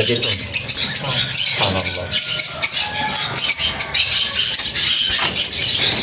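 Many caged small parrots chirping and chattering at once, a dense, steady high-pitched twittering.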